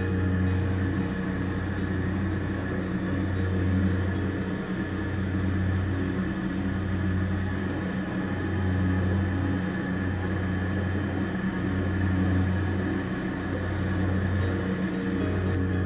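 Steady hum and hiss of a GTT Cheetah glassworking torch burning alongside an inline duct exhaust fan. A low hum swells and dips about every second and a half.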